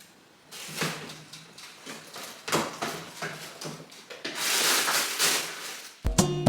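Uneven rustling and knocking of things being handled and moved about, a few seconds long. Plucked acoustic-guitar music comes in abruptly near the end.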